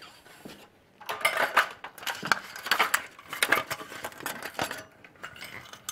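Slatted roll-up tabletop of a folding camping table clattering as it is pulled out of its bag and handled, the slats knocking against each other in quick, dense clicks. It starts about a second in and dies away about five seconds in.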